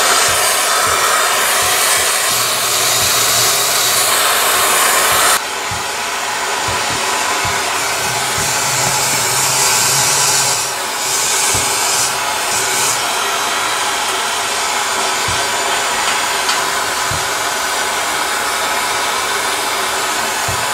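Hand-held propane torch flame burning with a steady hiss while it heats a keg bulkhead fitting to melt silver solder. The hiss drops suddenly to a slightly lower level about five seconds in.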